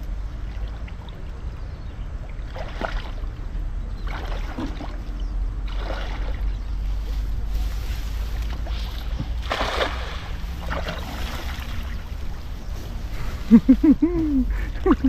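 Water sloshing and splashing as a person wades through a shallow river with a cast net, with a larger splash about ten seconds in as the net is thrown and lands on the water. A steady low rumble runs underneath.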